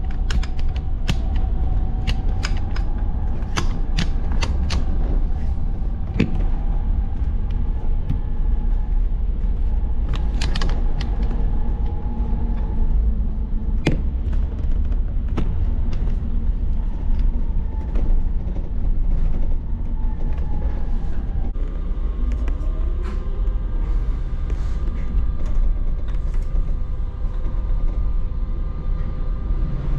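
Optare MetroDecker EV double-decker electric bus on the move, heard from inside on the upper deck: a steady low rumble with a steady whine over it, and frequent sharp rattles and creaks from the body and fittings, busiest in the first few seconds.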